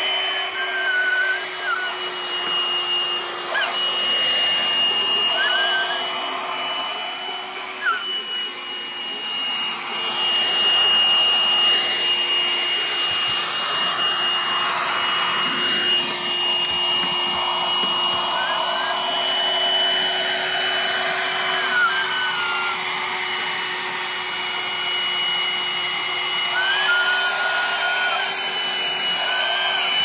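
Canister vacuum cleaner running steadily as it sucks dust off carpet: a constant high motor whine over a rushing hiss, with short squeaky chirps every few seconds.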